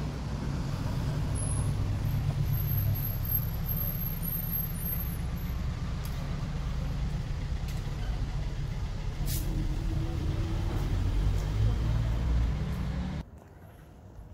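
A motor vehicle's engine running, a steady low rumble that cuts off suddenly near the end.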